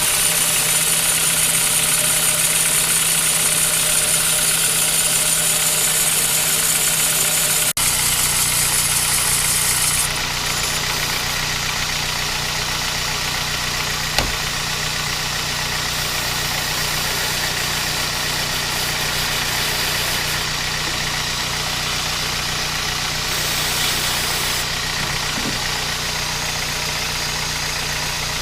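Kia Ceed 1.6 petrol engine idling steadily with its accessory drive belt running. A loud high hiss sits over it for about the first eight seconds and ends at an abrupt break, and there is a single short knock about fourteen seconds in.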